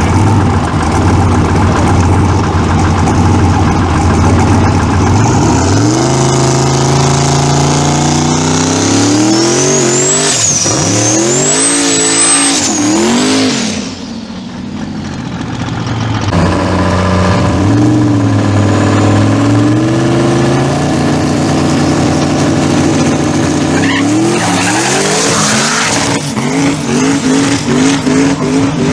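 Drag race truck's engine running loud at idle, then revving up into a burnout on its wetted drag slicks. The revs rise and fall several times, with a high squeal of the spinning tyres. After a brief dip the engine revs again and goes to full throttle for the launch, with a choppy, pulsing note near the end.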